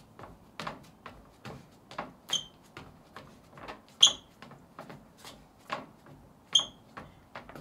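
Footsteps of Vivaia Aria 5 knit flats on wooden deck boards, a step about every half second. Three short high squeaks come with the steps, the loudest about four seconds in.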